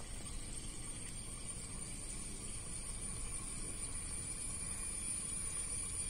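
Steady outdoor background noise: a low rumble with a thin, steady high-pitched whine over it.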